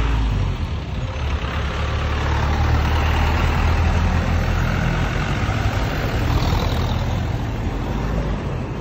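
Passenger jeepney's engine running as it drives past close by: a steady low rumble, with engine and road noise swelling over the middle few seconds and easing off toward the end.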